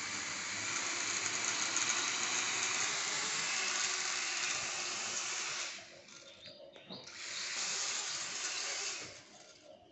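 Small toy quadcopter drone's propellers spinning with a steady, hissing whir. It cuts out about six seconds in, then starts again a second and a half later for about another second and a half.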